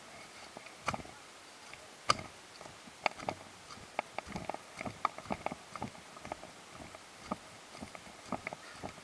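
Footsteps through storm debris of broken branches and leaves: irregular snaps, cracks and crunches several times a second, with one sharp snap about two seconds in.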